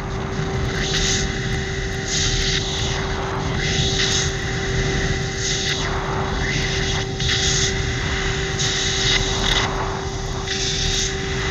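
F-18 jet cockpit noise: the twin jet engines and rushing airflow make a steady, loud noise with a constant whine. Short hisses come about every second or two, typical of breathing through an oxygen mask on a hot mic.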